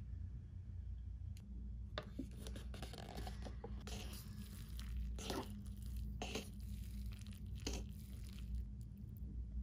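The paper-and-foil lid of a Nissin Cup Noodle is peeled back, then disposable wooden chopsticks stir and lift the noodles in the paper cup. There is a series of short rustling, tearing scrapes over a steady low hum.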